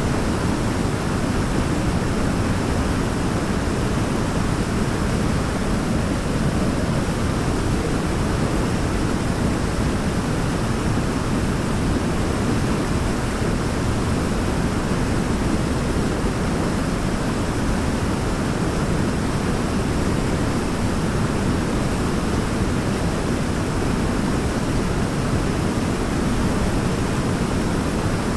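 Waterfall: a steady, unbroken rush of falling water, heaviest in its low rumble.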